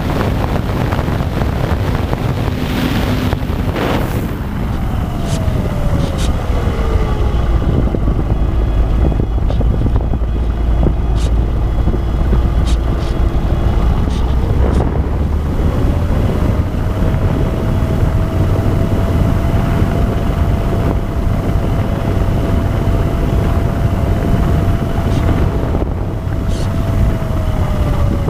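Wind buffeting the onboard camera's microphone on an E-flite Apprentice RC plane in flight. Over it runs the whine of the electric motor and propeller: the pitch falls a few seconds in, holds low, climbs about halfway through, holds high, then dips again near the end as the throttle changes.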